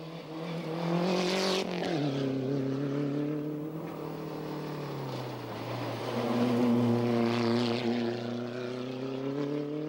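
Rally car engine at high revs passing close by, its pitch falling sharply about two seconds in as it goes past. The engine note swells loud again around six to eight seconds as a car comes by.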